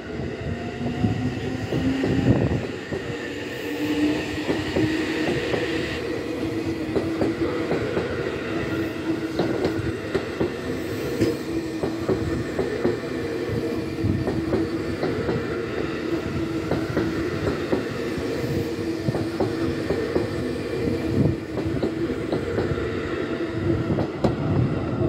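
Seibu 6000 series electric train pulling away from a station: a rising whine over the first few seconds, then a steady running tone with the wheels clicking over rail joints as the cars go by.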